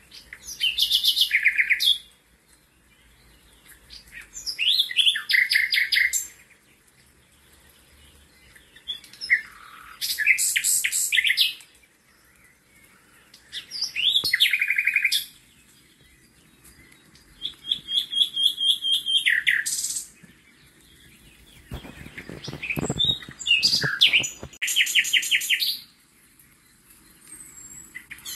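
A songbird singing, repeating a short high trilled phrase about every four seconds. A lower rattling sound comes in briefly about three quarters of the way through.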